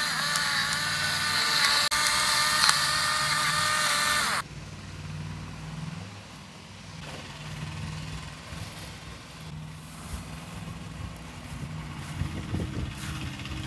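Electric pepper grinder running, its small motor whining over a grinding rasp, and cutting off abruptly about four seconds in. A quieter low hum and faint handling clicks follow.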